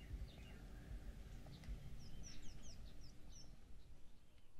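Faint birds chirping in the background, a run of short quick chirps that is busiest around the middle, over a low steady rumble.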